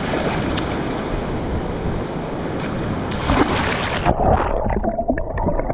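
Water splashing and sloshing right at an action camera held at the surface. About four seconds in, the camera goes under and the sound turns muffled and bubbling.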